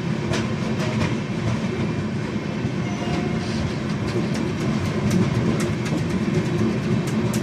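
Indian Railways train running on the rails: a steady rumble with clicks of the wheels over rail joints, coming more often in the second half.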